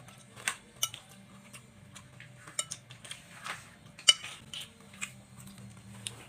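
Metal cutlery clinking and scraping against a dish in irregular taps during eating, the sharpest clink about four seconds in.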